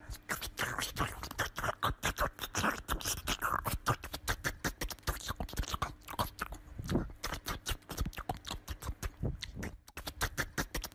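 A small dog's paws and claws knocking and scratching against a wooden door as it jumps up again and again: rapid, irregular clicking and tapping, with a brief lull near the end.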